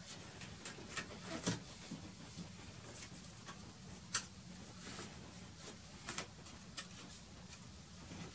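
Faint scattered clicks and rustles of hands handling paper and Blu Tack while rehanging a sheet of pastel paper on a wall, with a few sharper clicks, the clearest about four seconds in, over a low steady hum.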